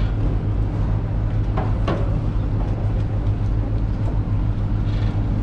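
Passenger boat's engine idling at the pier: a loud, steady low hum.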